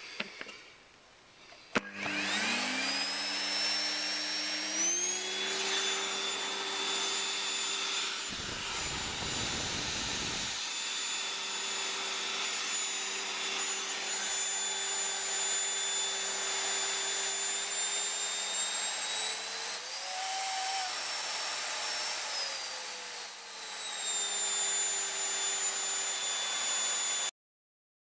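Vacuum cleaner motor switched on with a click, spinning up with a rising whine over a few seconds and then running steadily. About eight seconds in, a low rush of air sounds for about two seconds. Around twenty seconds in the motor's pitch rises, holds for a few seconds and falls back, and the motor cuts off suddenly near the end.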